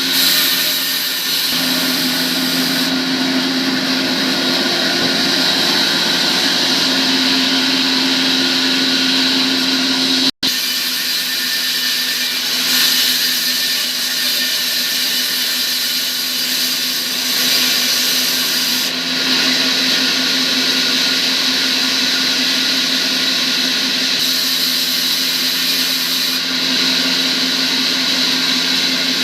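A motor-driven workshop machine or power tool running steadily, with a constant hum and a high whine. It cuts out abruptly for an instant about ten seconds in, then runs on unchanged.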